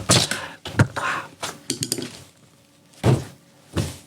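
Scattered knocks and thumps, then a short lull, then two heavier thuds near the end about two-thirds of a second apart.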